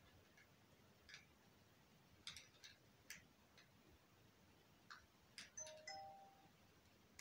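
Near silence: quiet room tone with faint, scattered short high clicks and chirps, and a few brief faint tones about six seconds in.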